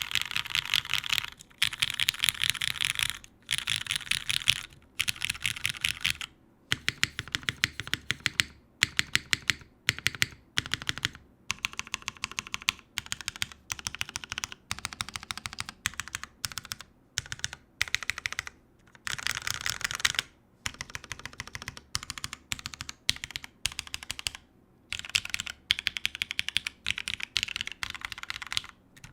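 Fast typing on a Kypseli TKL mechanical keyboard with Cherry MX Black linear switches on a full aluminium plate and GMK Muted keycaps: dense runs of keystrokes in bursts with short pauses between them.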